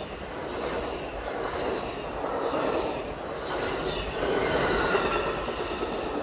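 Amtrak Superliner bilevel passenger cars rolling past at close range, a steady rumble of wheels on the rails with a faint high squeal of wheels.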